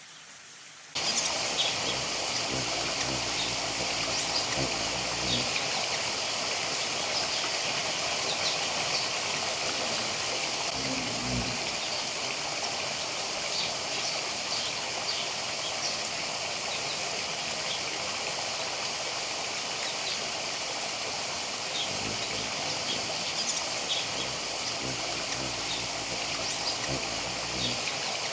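Outdoor ambience: a steady rushing noise like running water, starting about a second in, with short high bird chirps scattered through it.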